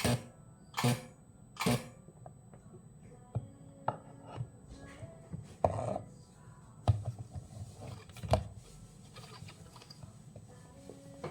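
Handling noises of work at a bench: three quick scraping strokes in the first two seconds, then scattered light clicks and knocks, with faint background music.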